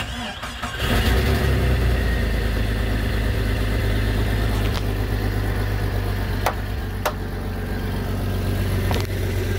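Jeep Cherokee XJ's 4.0-litre straight-six cranks for under a second and catches, then settles into a steady idle: the first start of a freshly swapped engine, which starts right up. A few light clicks come through over the idle.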